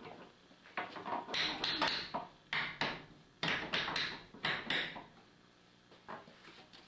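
Irregular knocks and bangs on a wooden stair banister being taken apart, coming in several quick clusters with short pauses between.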